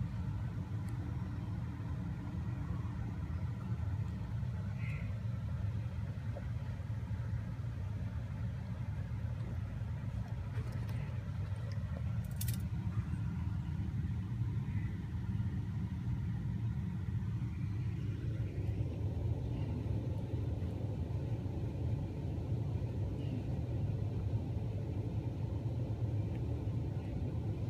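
Steady low vehicle rumble, with one sharp click about twelve seconds in and a few faint short squeaks.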